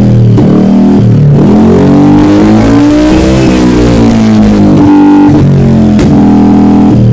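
Yamaha NMAX scooter's single-cylinder engine, fitted with a Juken 5+ aftermarket muffler, revving up and falling back, with one sharp backfire pop about six seconds in.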